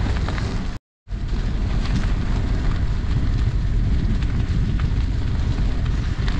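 Wind buffeting an action camera's microphone while riding a bike along a gravel path, a steady low rumble with faint crunches from the tyres. The sound cuts out completely for a moment about a second in, then carries on.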